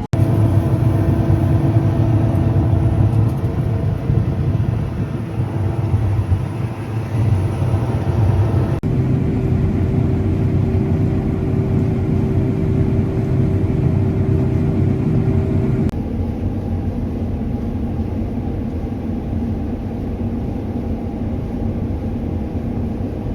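Harvest machinery engine running under load: a steady low rumble with an engine hum, in three cuts, the hum's pitch shifting about 9 and 16 seconds in.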